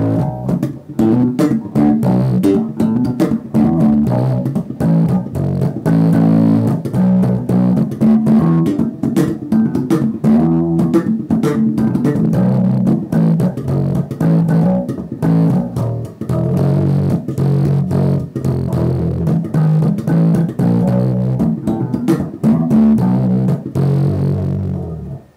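BassMods K5 five-string electric bass played through a Traynor Small Block 15 bass amp: a continuous run of plucked notes in busy bass lines, stopping abruptly at the end.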